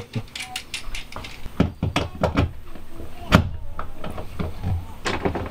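A run of clicks and knocks from hands handling small hardware and tools during van build work, with one sharp knock a little over three seconds in.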